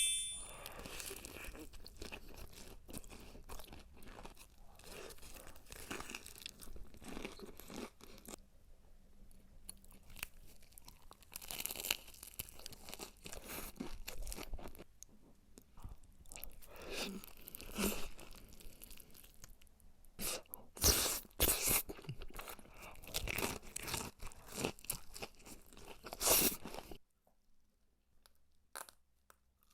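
Crunching bites into crispy fried chicken skin, then chewing, with crackles from the coating. The loudest crunches come in clusters, and the sound fades to near quiet in the last few seconds.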